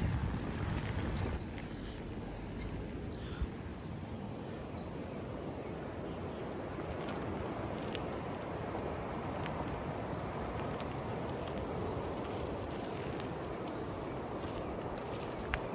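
Steady rumble of a mountain bike riding over a rough track, with a few faint rattling clicks and one sharper click near the end.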